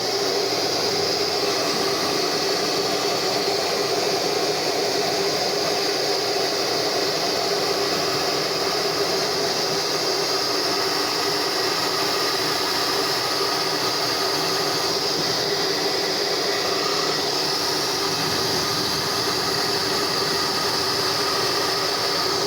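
Fórmula 6000 Turbo hair dryer switched on and running steadily on heat, the fan motor whirring with a steady rush of air. The fan spins freely after a wad of hair was cleared from under it.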